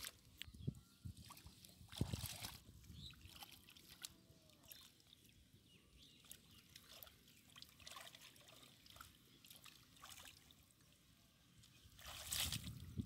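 Hands squelching and sloshing through shallow muddy water, groping for fish. Faint, irregular small splashes, with a louder splash about two seconds in and louder sloshing near the end.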